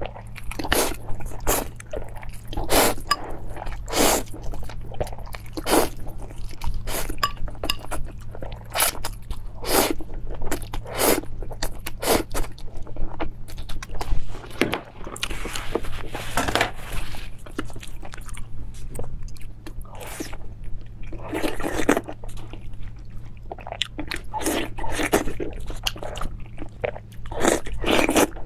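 Close-miked eating sounds: wet chewing of sauced noodles as a run of sharp mouth clicks with a few longer slurps. Near the end come crunchy bites into a raw zucchini.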